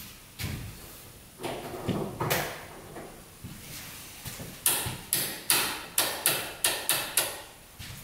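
A series of sharp clicks and knocks from hands working the switches and panels at the back of a Polaris Ranger UTV's cab: a few scattered ones at first, then a quicker run of about two to three a second in the second half, each ringing briefly.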